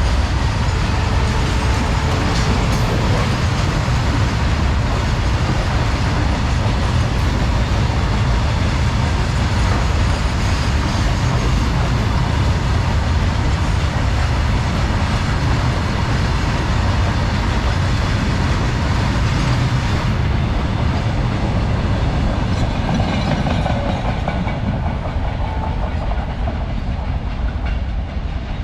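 Freight train wagons running past at speed, a loud, steady rumble of steel wheels on the rails. About two-thirds of the way through, the highest sounds drop away while the rumble continues.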